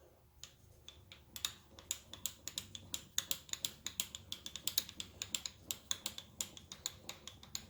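Surface grinder being traversed by hand under a dial indicator: rapid, irregular mechanical clicking from the handwheel and feed mechanism, about five clicks a second, starting about half a second in.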